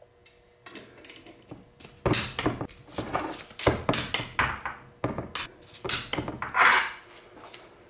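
Irregular metal clicks and clanks of a wrench tightening the extension-housing bolts on a T5 transmission's aluminium case, starting about two seconds in, some with a short ring.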